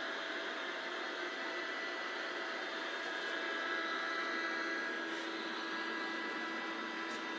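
Steady hiss of static from a small untuned CRT television, with a few faint steady tones running through it.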